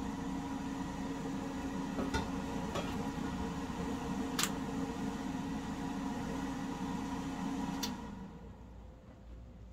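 A steady mechanical hum, like a running fan or motor, with a few faint clicks; it cuts off suddenly about eight seconds in.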